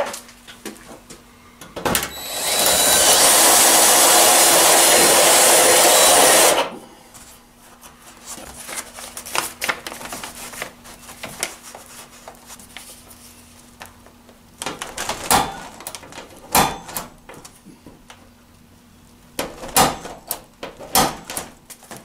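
A handheld power tool runs steadily for about four seconds, starting about two seconds in and stopping abruptly, as the edge of a hole drilled through the garage door's metal strut is sanded. Later come a few light knocks and handling noises.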